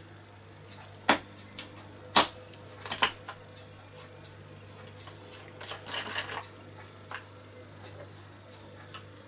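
Clicks and clinks of small objects handled on a tabletop, with a plastic bottle's screw cap taken off and set down among them. About a dozen uneven sharp knocks, the loudest about one and two seconds in, and a quick run of them about six seconds in.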